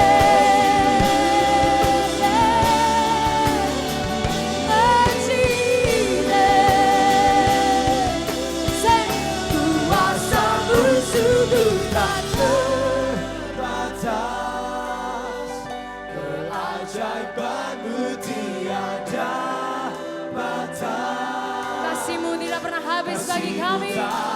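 Live worship band with choir singing long, wavering held notes over full accompaniment. About thirteen seconds in, the bass drops away and the accompaniment thins, leaving the voices over a lighter backing.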